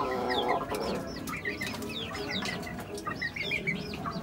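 Chickens calling in a coop: many short, high chirps repeated throughout, with a lower clucking call in about the first second.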